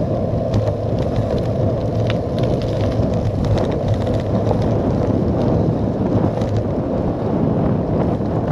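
Wind buffeting the microphone of a camera on a cyclocross bike's handlebars, mixed with tyre noise on tarmac, at about 21 mph. It is a loud, steady rumble with faint scattered ticks above it.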